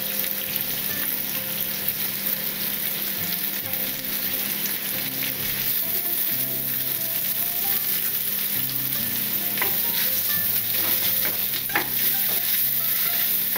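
Diced chicken and onion sizzling in a hot frying pan as ketchup is stirred through them with a wooden spatula, which scrapes and taps against the pan.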